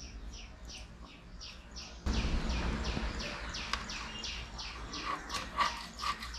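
A bird calling over and over, each call a quick falling note, about three a second. A louder low background rush comes in about two seconds in.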